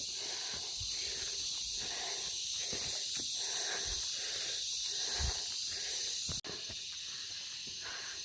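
A hiker panting heavily in a steady rhythm while walking uphill, over a steady high hiss of insects, with a few soft footfalls. The sound cuts out briefly about six seconds in.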